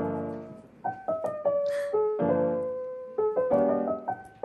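Background piano music: gentle chords and single notes struck one after another, each left to ring and fade.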